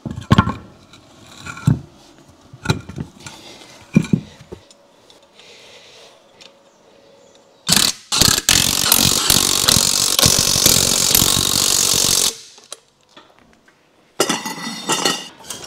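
A few knocks as a steel wheel is fitted onto the hub. Then a cordless impact wrench hammers the wheel nuts tight: a short burst, then about four seconds of continuous rattling. A further stretch of rattling comes near the end.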